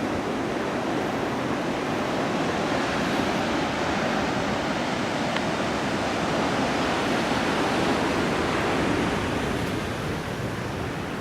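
Ocean surf breaking on the shore: a steady rush of waves that eases off slightly near the end.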